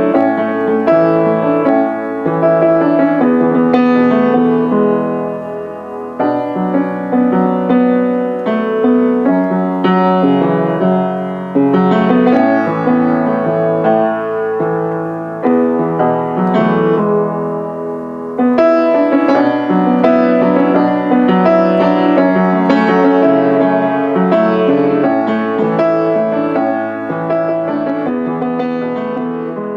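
Background piano music: a gentle melody over chords, played steadily.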